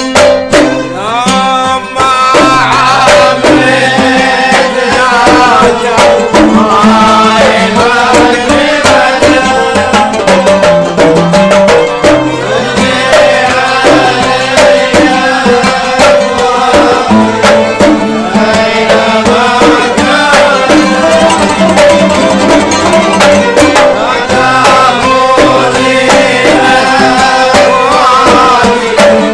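Kuwaiti sawt ensemble playing an instrumental passage: violins and qanun carry a gliding Arabic melody over the steady beat of mirwas hand drums.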